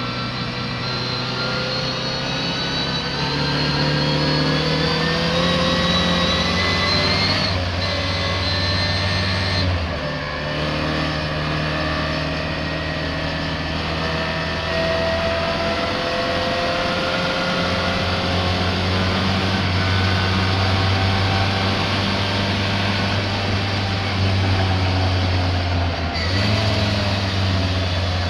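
A misfiring racing car engine accelerating hard through the gears. Its pitch climbs, then drops at gear changes about seven and ten seconds in and again near the end.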